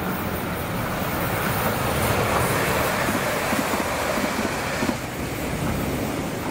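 Passenger train running past on the track, a steady rumble of wheels on rail that swells about two seconds in and eases off near five seconds.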